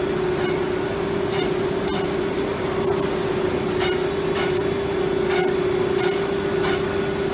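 CNC router spindle running with a steady whine, with faint irregular ticks about once a second.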